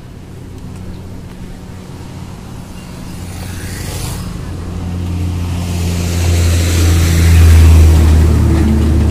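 A motor vehicle's engine running with a steady low hum that grows steadily louder, loudest near the end, over road and wind noise.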